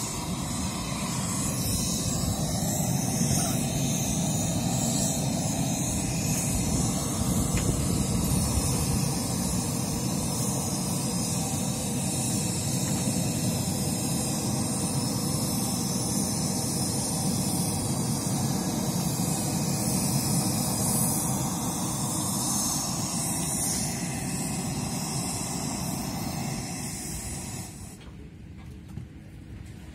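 Test noise (a steady rushing hiss across the whole range) played through the PA loudspeakers while the sound system is being set up at the mixing desk; it cuts off suddenly near the end.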